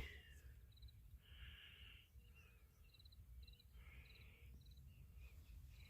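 Near silence: faint outdoor background with a low rumble and a few short, soft high chirps, typical of insects or small birds.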